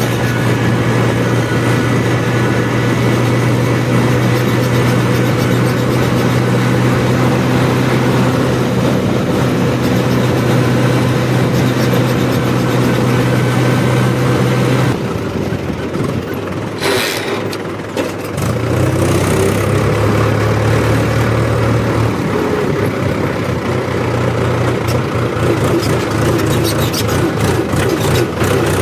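Diesel engine of farm machinery running steadily. About halfway through its steady note breaks off, a brief hiss follows, and then the engine runs on.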